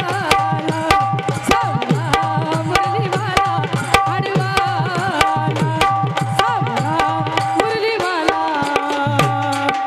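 Live Marathi gavlan folk music: hand drums of the tabla kind playing a fast, steady rhythm under held melody tones, with some melodic lines that may be the singer's voice.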